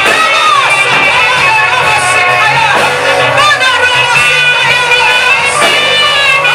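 Live church worship music: singers holding sustained, gliding lines over band accompaniment with occasional cymbal hits, in a Swahili worship song.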